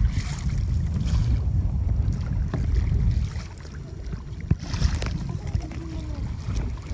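Kayak paddle blades dipping and splashing in choppy water, under wind rumbling on the microphone that eases off about three seconds in. A sharp knock sounds about four and a half seconds in.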